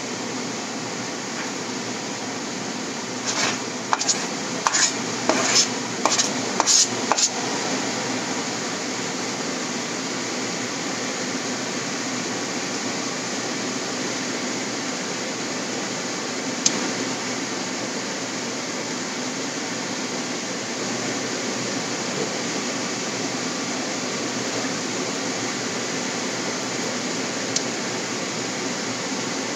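A cutting board and spatula clacking and scraping against a nonstick frying pan as kale is tipped in: a quick run of about eight clacks a few seconds in, then one sharp tap around the middle and another near the end, over a steady hiss.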